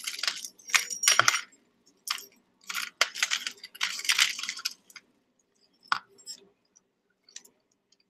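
Tangled costume jewelry (metal chains, bracelets and beads) jingling and clinking as hands rummage through it in a box, in several bursts of clatter over the first five seconds, then only a few scattered clinks.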